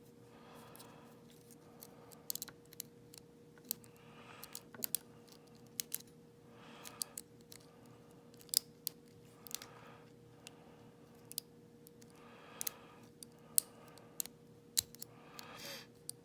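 A lock pick working the pins of a six-pin Schlage pin-tumbler lock, giving irregular small sharp clicks as the pins are lifted and set.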